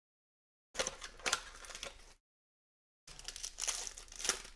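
Foil wrapper of a Panini Mosaic Choice football card pack crinkling and tearing as it is opened, in two rustling bursts.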